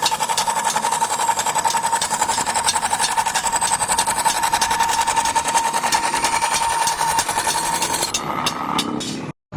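Rapid machine hammering, many strokes a second, over a steady whine. It breaks up and cuts off abruptly near the end.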